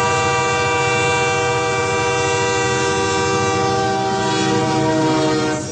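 Train horn sounding one long, steady blast over the low rumble of the train running, cut off abruptly near the end.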